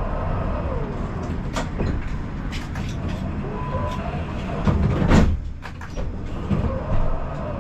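Siemens Combino tram running on its rails, heard from inside: a steady low rumble with scattered clicks, and a louder clunk about five seconds in.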